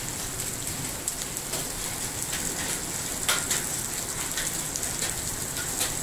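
Heavy rain pouring down: a steady hiss with many close drops striking, one louder strike about three seconds in.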